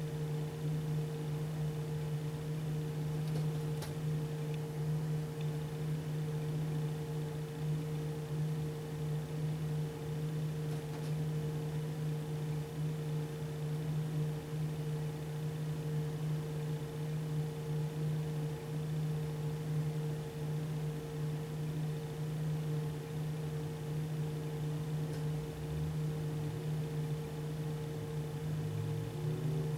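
Steady machine hum: two constant tones over a faint hiss, with a few faint ticks.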